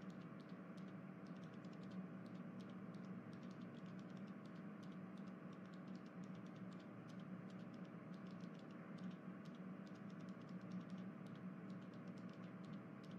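Faint, irregular light clicks, several a second, over a steady low hum.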